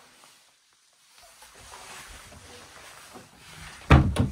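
Wooden interior door of a log cabin being handled, with two loud thumps close together near the end. Before that there is a brief drop to silence, then faint rustling of movement.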